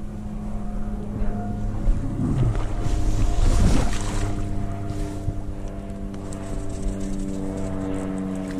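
A small hooked coho salmon splashing and thrashing at the water's surface as it is played in on a fly rod, loudest a few seconds in, over a steady low drone.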